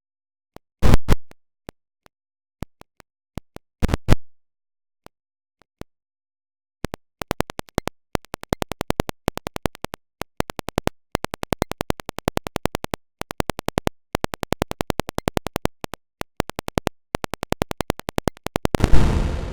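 Glitchy digitally edited audio of chopped sound fragments: scattered sharp clicks and two short loud bursts, then from about seven seconds a fast stream of clicks at several a second. It ends in one loud, deep boom that dies away.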